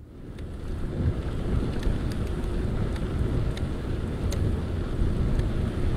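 Wind buffeting the microphone of a camera on a moving mountain bike, a steady low rumble, with a scattered few sharp ticks.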